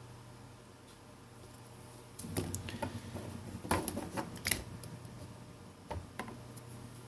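Light clicks, taps and rustling from handling a smartphone's small parts during a repair. They come in a short flurry in the middle, over a steady low hum.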